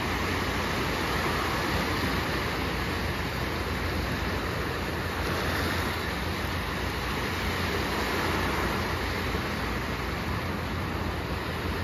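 Small sea waves washing onto the shore: a steady hiss of surf with a low rumble underneath.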